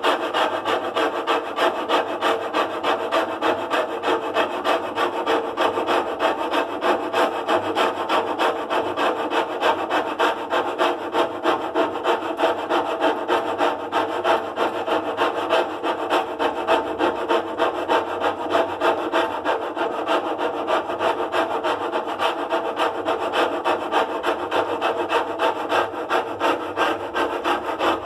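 Steady, rhythmic rasping scrape at about three strokes a second, like sawing or filing, repeating evenly without pause.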